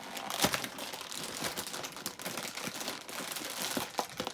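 Crinkling and crackling of a toy's packaging handled by hands, with a sharper snap about half a second in.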